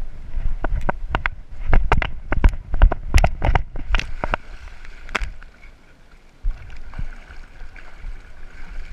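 A pit bull with a GoPro on its back splashing into the water and swimming, the water close against the camera housing. It starts with a quick run of sharp splashes and knocks over the first few seconds, goes briefly quieter, then turns to steady sloshing and gurgling as the dog paddles.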